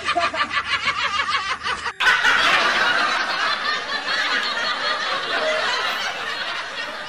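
Rapid high-pitched snickering laughter, about five pulses a second, cut off about two seconds in by a louder, denser wash of laughter.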